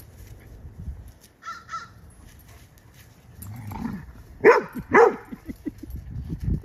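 Dogs at play: two sharp, high-pitched barks about half a second apart, a little past the middle, with a short fainter whine-like sound earlier.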